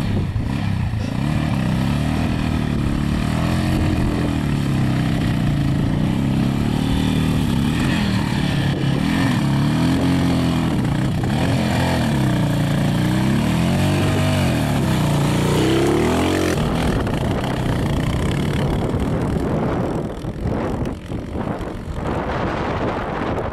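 Single-cylinder 350 cc dirt bike engine revving up and down again and again as it climbs a steep dirt hill. About two-thirds of the way through, the engine note gives way to a rougher, noisier sound.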